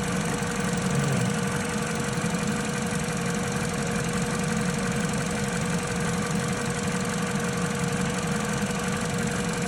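Vauxhall Corsa D's four-cylinder petrol engine idling steadily, with a thin constant tone over it. It is being run up to temperature after a coolant flange replacement so the coolant level can settle and be topped up.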